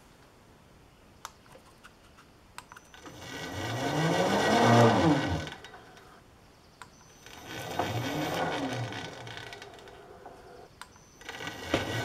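Milling machine spindle twice switched on and off, each time rising in pitch as it spins up and falling as it coasts down, driving a tap held in a drill chuck into a hole in steel angle iron to start the threads. A few faint clicks come before the first start, and the spindle starts again near the end.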